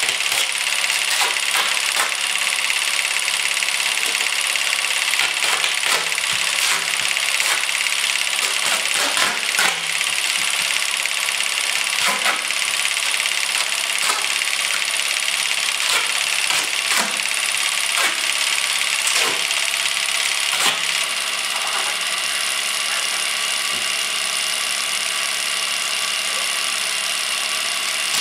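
Masking tape being pulled off its roll and pressed onto crinkly plastic film wrapped around a head: a scatter of short crackles, rips and clicks over a loud, steady hiss.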